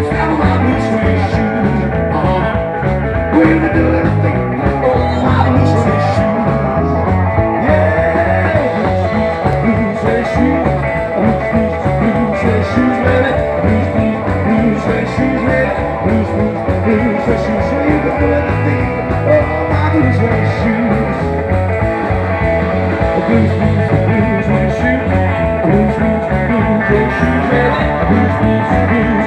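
A live rock and roll band playing, with electric guitars and a drum kit, while a man sings into the microphone.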